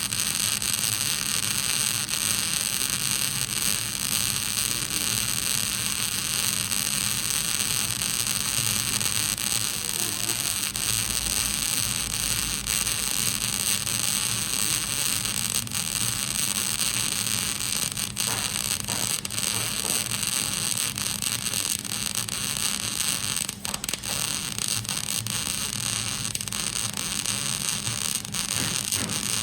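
Electric arc welding: a steady crackling hiss from the arc as a bead is laid, with a low steady hum underneath.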